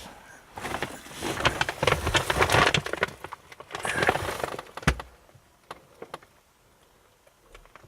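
Hard objects rattling and clicking as they are handled for about four seconds, then a single sharp knock about five seconds in and a few faint clicks.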